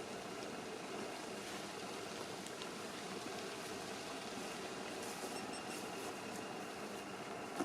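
Steady, faint, even hiss of background noise with no engine running yet, and a single sharp click near the end.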